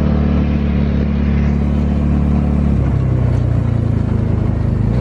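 Engine of an open side-by-side UTV running under way, a steady low note that changes pitch about three seconds in.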